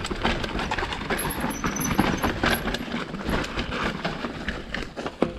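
Mountain bike rolling fast down a dirt trail and over loose rocks: a continuous rumble of tyres on the ground with frequent knocks and rattles from the bike jolting over the stones.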